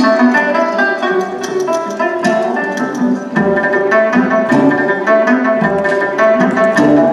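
Soundtrack music of a video advert: held melodic notes over light percussion, with deeper beats coming in about three seconds in.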